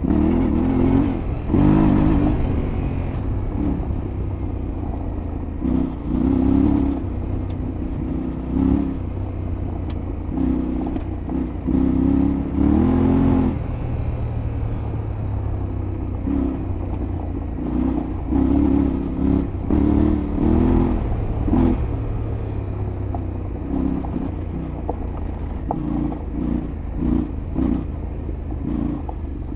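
Yamaha Tenere 700 World Raid's 689 cc parallel-twin engine pulling off-road, the throttle opened and closed again and again so the engine note surges and drops every second or two, with a rising rev about halfway through.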